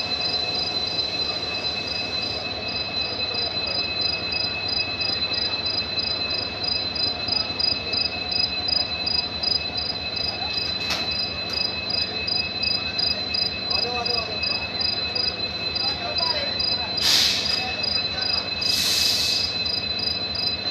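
Insects trilling steadily in several high tones, one of them pulsing evenly, over a constant low background noise, with two short hissing bursts near the end.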